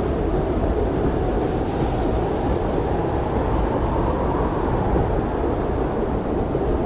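Blizzard wind blowing steadily, a deep, low rushing noise with a faint hiss of driven snow above it.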